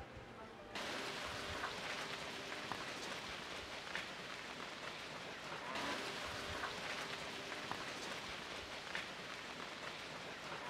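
Hooves of a herd of cattle and calves walking over a stony dirt track: a steady, rain-like shuffling and crunching patter with scattered small clicks.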